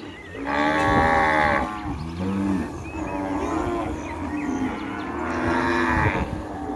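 Cattle mooing: several cows call over one another, with a loud, long moo about half a second in and another near the end.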